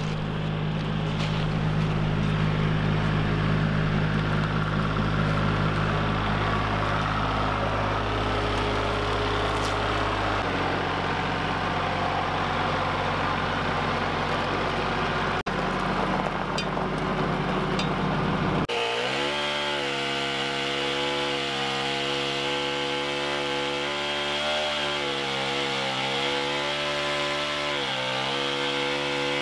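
A Kubota compact tractor's diesel engine running steadily as it drives. About two-thirds of the way through it cuts to a two-stroke chainsaw running, its pitch rising and falling as it cuts into a log.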